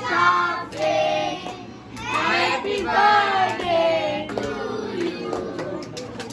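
Music with singing voices: long held, gliding sung notes.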